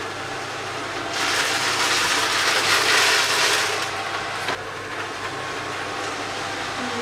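iLife V7S robot vacuum running, a steady motor and brush noise. It grows louder for about three seconds from about a second in, then settles back, with a short click as it drops.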